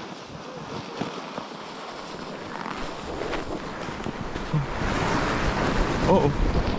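Wind buffeting the microphone, a rushing noise that grows louder and deeper over the last couple of seconds.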